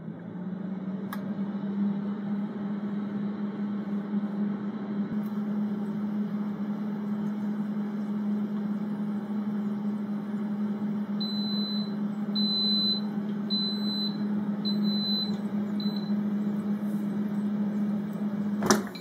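Bagotte air fryer running, its fan giving a steady low hum. In the second half it beeps five times, short high beeps about a second apart. Near the end there is a click and the fan stops as the basket is pulled out.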